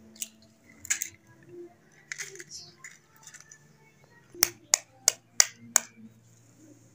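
Eggs being cracked on the rim of a stainless steel plate: a couple of light knocks near the start, then five quick, sharp taps about four and a half seconds in as the next egg is tapped open.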